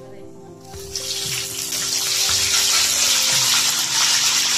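Whole spices (cinnamon, bay leaves, cloves, star anise, cardamom and black peppercorns) dropped into hot oil in a large kadhai, sizzling. The sizzle starts about a second in, swells quickly and then holds at a steady, loud hiss.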